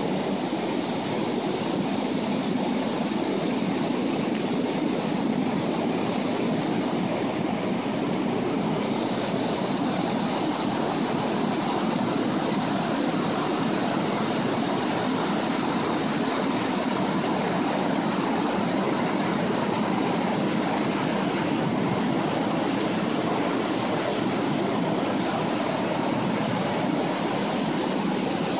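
Steady rushing of floodwater pouring over a river weir, the River Avon running high and brown in flood.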